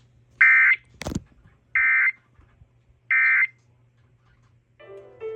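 Emergency Alert System end-of-message code: three short bursts of digital data tones about 1.3 seconds apart, with a sharp click just after the first burst. A set of steady electronic tones begins near the end.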